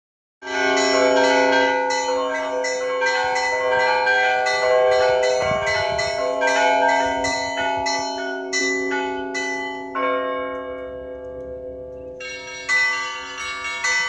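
Russian Orthodox church bells ringing a peal: rapid strikes of the small bells, about three or four a second, over the long ringing tones of the larger bells. About ten seconds in the quick strikes stop and the larger bells hum on, then the strikes pick up again near the end.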